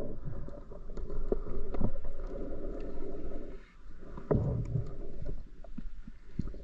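Muffled underwater water noise: gurgling and sloshing with scattered small clicks, rising and falling in surges.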